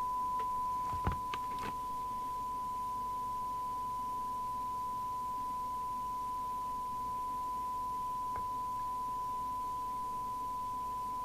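Steady single-pitch test tone from the Rotel RVC220 CB radio, the signal generator's modulation tone being received and played through the set, with a thump and a couple of clicks about a second in.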